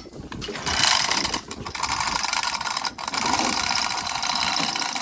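Rapid mechanical clicking from the International A414 tractor's PTO unit as it is being fitted back into place, starting just under a second in and carrying on with a short break about three seconds in.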